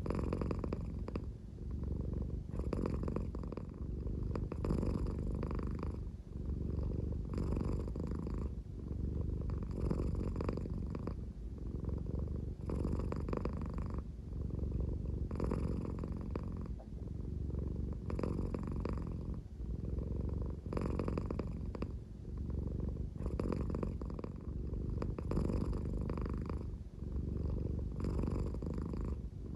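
An American Shorthair cat purring slowly and deeply, a snore-like purr. It swells and eases with each breath, about every two and a half seconds.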